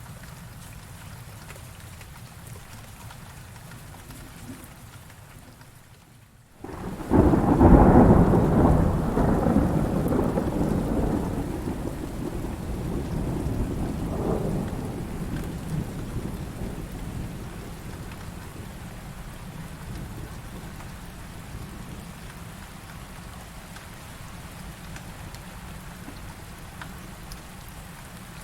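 Heavy rain falling steadily. About seven seconds in, the sound drops out for a moment, then a loud thunderclap breaks and rolls on as rumbling thunder, swelling once more partway through and fading over about ten seconds while the rain continues.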